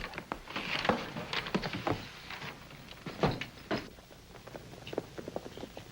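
Footsteps and a door being opened and shut, a series of short knocks with a heavier thud about three seconds in.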